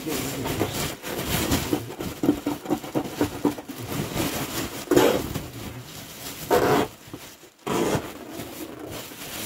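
Old, stiff hessian-backed carpet being ripped up and dragged across the floor: irregular tearing and scraping, with several louder rips partway through.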